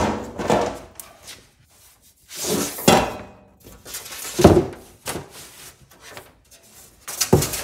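Stacked metal road signs being flipped through in a rack, the sheets scraping and clattering against each other in about four loud bursts with sharp knocks.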